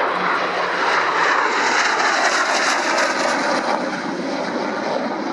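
Hawker Hunter jet fighter's Rolls-Royce Avon turbojet roaring in a display pass. It swells within the first second, holds loud, and eases off toward the end.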